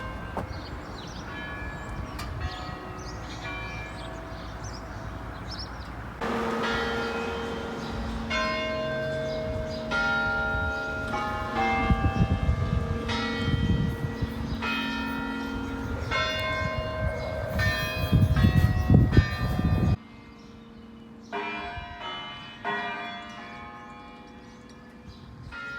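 Church bells ringing: many overlapping pealing strikes of different pitches, each left to ring on. The bells get suddenly louder about six seconds in and suddenly quieter near the end. A low rumble comes and goes under them in the middle stretch.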